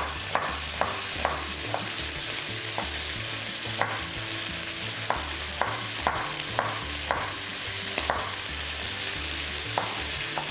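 Kitchen knife chopping an onion on a wooden cutting board: sharp taps at an uneven pace, about two a second in runs with pauses between. Under the taps runs a steady sizzle from the frying pan on the stove.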